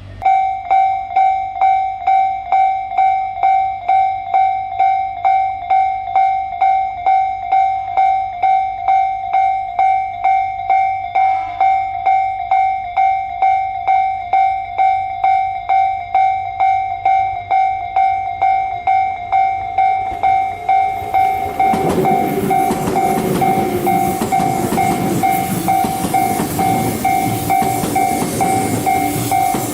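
Japanese level-crossing warning bell starting up and ringing in a steady repeated ding, about two strokes a second. About twenty seconds in, a train arrives and runs past over the crossing, and its noise joins the bell, which keeps ringing.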